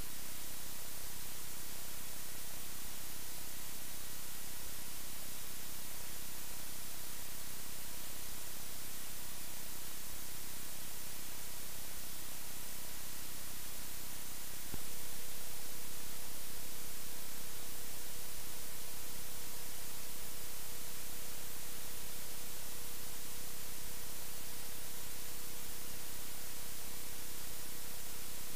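Steady static hiss from the recording itself, with faint steady hum and tones underneath. About fifteen seconds in a click is followed by a new steady mid-pitched tone that runs on.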